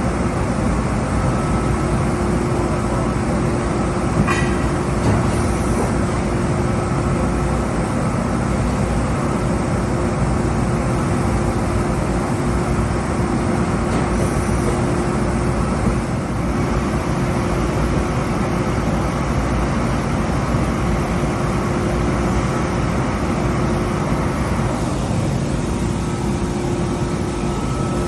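Mori Seiki DuraVertical 5100 vertical machining center running under power: a steady mechanical hum with a constant tone, and a brief click or two about four seconds in.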